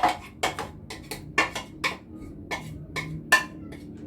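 Marinated chicken pieces being spread in a non-stick metal baking tray: a quick, irregular run of sharp clinks and taps against the tray, several a second.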